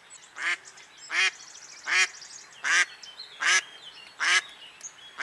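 Live decoy hen duck quacking in a steady series: seven loud, evenly paced quacks, a little under a second apart, the hen's call used to draw in drakes.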